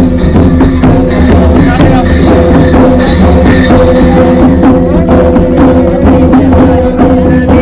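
Loud music with drums and fast, clattering percussion over a steady held tone.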